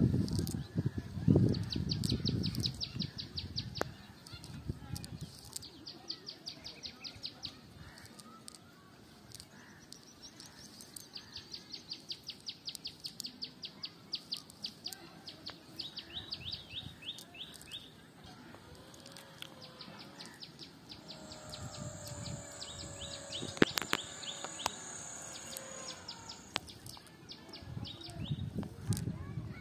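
A small bird calling in repeated quick trains of high chirps, about ten notes a second, through most of the stretch. Under it, near the start and again near the end, the low rustle of a cast net being handled.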